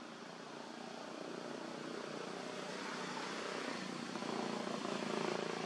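An engine droning steadily and growing louder, as a motor vehicle or aircraft passes.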